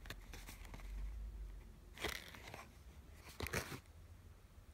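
Cardboard toy packaging being opened by hand: three short bursts of crinkly scraping and rustling as flaps and a card insert are pulled, the last, near the end, the loudest.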